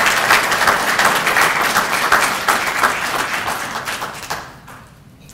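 Audience applauding: many hands clapping together, dying away about four and a half seconds in.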